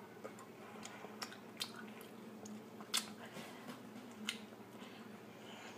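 A person chewing a mouthful of pickled hot pepper, faint, with a few sharp little clicks scattered through.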